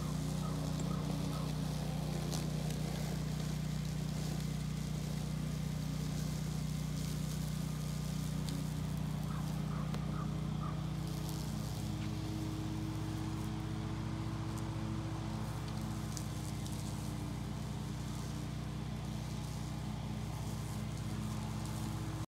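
Electric walk-behind lawn mower running steadily with an even motor hum as it is pushed through long grass.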